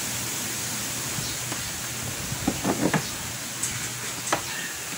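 Small knocks and scrapes of hands and a tool working on a scooter's plastic body and fittings: a quick cluster of clicks about halfway through and a single knock near the end, over a steady background hiss.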